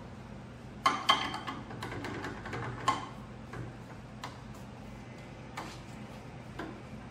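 Knocks and clicks of a wooden bowl blank being twisted by hand off a woodworm screw in a lathe chuck. A few sharp knocks come in the first three seconds, then lighter scattered ticks.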